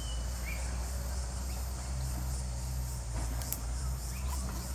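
Wind rumbling on the microphone under a steady high hiss, with a short falling chirp right at the start and a few faint clicks.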